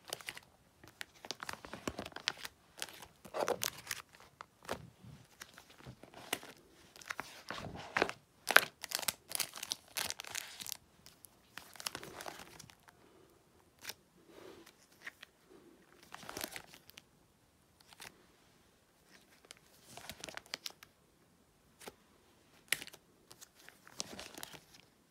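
Clear plastic binder sleeve pages full of trading cards crinkling and rustling as they are turned and handled, in uneven bursts with short pauses between page turns.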